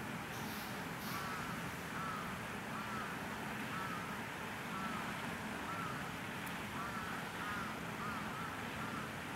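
An animal's short, high calls, repeated about once a second and coming a little faster near the end, over a steady background hiss.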